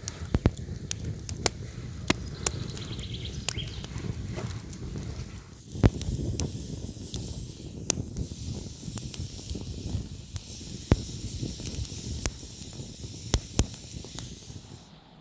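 Campfire crackling: scattered sharp pops and snaps over a steady hiss. The hiss turns brighter about five and a half seconds in and cuts off near the end.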